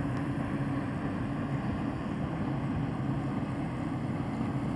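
Motorboat's Yamaha engine running steadily at cruising speed under a load of five people, a constant hum under a rush of wind and water.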